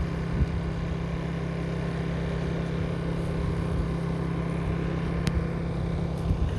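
A steady, low engine drone that cuts off suddenly near the end.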